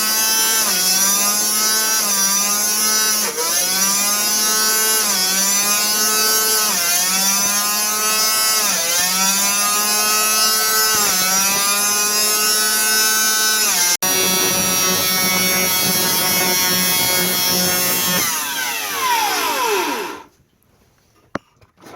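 A 1930s Cinderella clothes washer's universal AC-DC motor whining at high speed, its pitch dipping and recovering about every two seconds with the pumping strokes. About two-thirds through, after a click, the rhythm stops and the whine holds steady: the motor is over-speeding without load in a suds lock from too much soap. Near the end the whine falls in pitch and stops.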